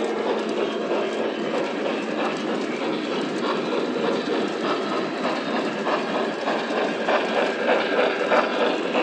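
Several O-gauge model trains running at once on metal track: a steady whir and rumble of wheels and motors. Rhythmic clicks of the wheels over the rail joints grow stronger in the last few seconds as a string of hopper cars passes close.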